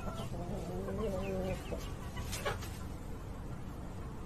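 A chicken clucking, with wavering, drawn-out calls in the first second and a half.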